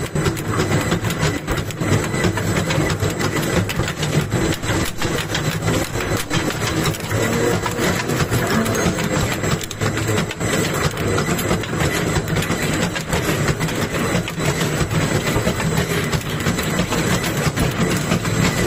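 A square concrete-pile reinforcement-cage welding machine running with a steady mechanical clatter. Dense crackling comes from the welding as the rotating head winds wire onto the rebar cage.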